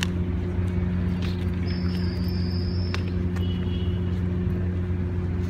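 A steady low motor hum, unchanged throughout, with a brief high tone about two seconds in lasting about a second and a few light clicks.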